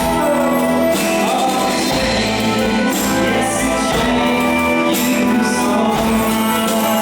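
Live pop band playing, a singer over guitar, bass and drums, with the bass changing notes about once a second.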